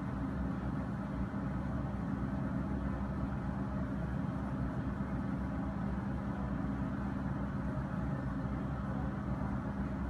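Komatsu hydraulic excavator's diesel engine running steadily under load while it digs, a low even hum with no knocks or changes in pitch.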